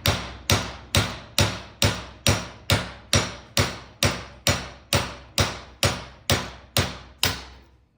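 A hammer striking metal in a steady rhythm, about two blows a second, each ringing briefly; the blows stop about seven seconds in.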